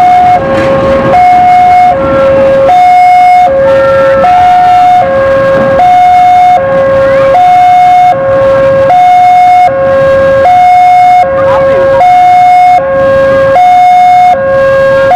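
Level-crossing warning alarm sounding a loud, steady two-tone hi-lo signal, switching between a higher and a lower tone about every 0.8 s, the warning that the crossing is closed for a train.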